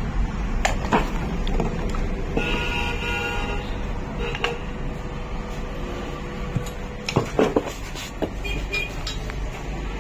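Steady traffic rumble, with a vehicle horn honking for about a second, a shorter toot just after, and a few sharp clinks later on.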